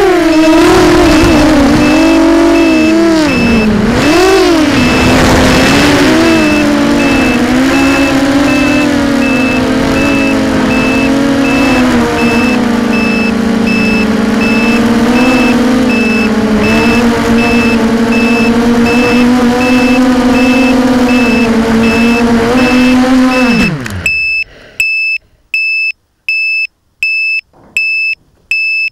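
Brushless motors of a small homemade quadcopter (Sunnysky 2204 2300 kV with 6-inch props) whining from its onboard camera, the pitch swinging up and down with throttle early on, then holding fairly steady. Near the end the motors wind down with a falling pitch as it lands, leaving a loud electronic beeper going about one and a half times a second.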